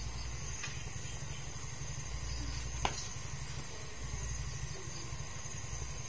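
Steady low rumble with a constant high insect trill over it, and one faint click about three seconds in.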